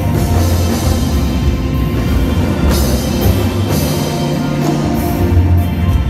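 A drum kit played loud with a live band: heavy kick drum and bass guitar underneath, with a few cymbal crashes.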